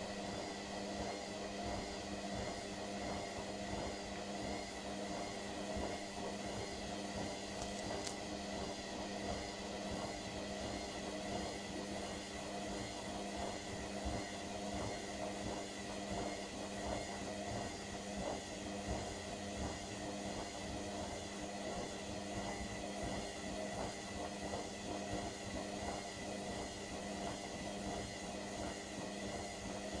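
Indesit front-loading washing machine running a wash, its drum turning through sudsy water: a steady motor hum with water swishing in the drum. There is one brief click about eight seconds in.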